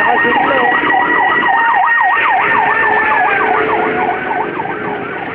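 Fire truck siren in a fast yelp, its pitch sweeping up and down about three times a second, with a steady siren tone held above it. It grows a little fainter after about four seconds.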